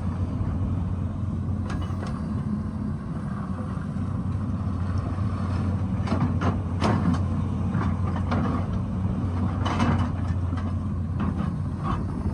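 Excavator's diesel engine running steadily under load, with several sharp knocks and clatters of the bucket working against rock.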